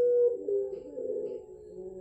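Puter pelung (ringneck dove) cooing. A long held note breaks off just after the start, then a second note slides lower and fades away.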